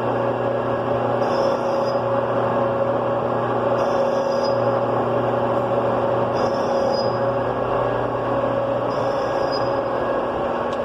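A machine tool running steadily with a constant motor hum. A brief high hiss comes back about every two seconds, like a cutter engaging the work on each pass.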